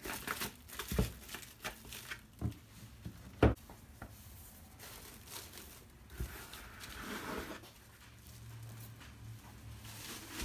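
Plastic cling film crinkling as it is pressed and smoothed over a bowl, with several light taps and knocks, the loudest about three and a half seconds in. A softer cloth rustle follows as a dish towel is laid over the bowl.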